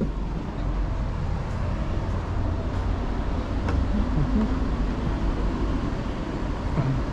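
City street traffic: a steady low rumble of passing cars and buses.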